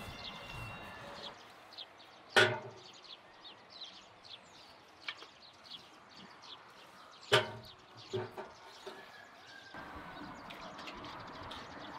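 Small birds chirping busily, with two sharp knocks, one about two seconds in and another about five seconds later.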